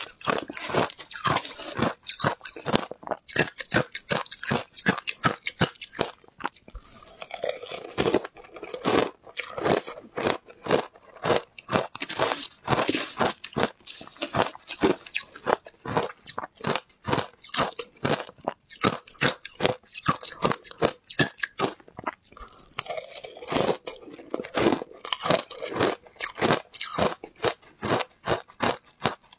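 Shaved ice topped with matcha and milk powder, crunched between the teeth in a rapid, steady run of close-miked bites, several a second.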